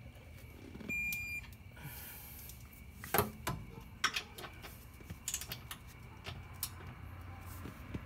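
A short electronic beep, most likely from a Snap-on digital torque wrench, about a second in, followed by several sharp clicks and knocks.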